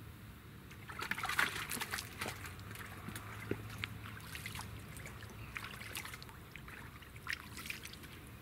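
Hands dipping and splashing in shallow lake water at the shore's edge, with water trickling and dripping, in two bursts: about a second in and again near the end.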